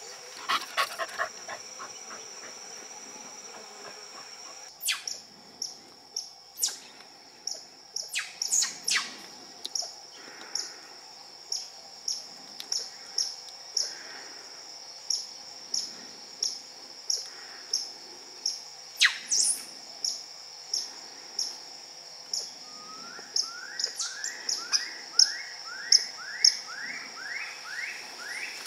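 Wild birds and insects calling: a steady high insect drone with a short chirp repeating more than once a second, a few loud sharp calls, and near the end a run of quick rising whistles, about two a second.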